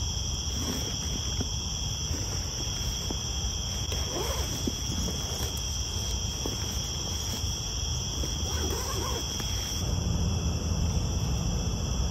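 Steady chorus of night insects, a continuous high trill, over the low rumble and soft rustling of nylon bivy and sleeping-bag fabric being handled as someone settles into the tent.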